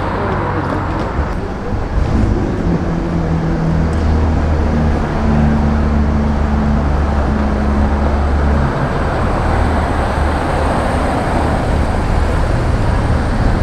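City street traffic: a steady rush of passing vehicles. From about two seconds in until nearly nine seconds, a nearby vehicle's engine adds a low, steady hum.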